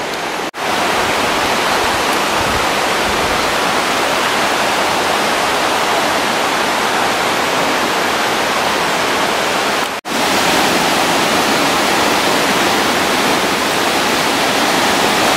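Steady rushing of a waterfall, an even wash of water noise, cut off briefly twice.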